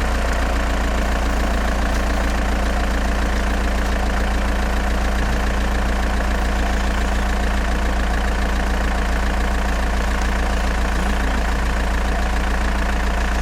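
Engine idling steadily, a constant low rumble with an unchanging pitch, like a tractor engine at idle.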